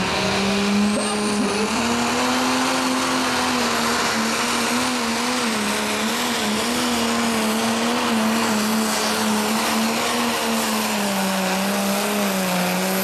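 Turbocharged diesel engine of a Fiat 180-90 DT pro stock pulling tractor held at full throttle under load while it drags the sled. It gives one steady engine note that wavers slightly and drops a little in pitch near the end, over a loud rushing noise.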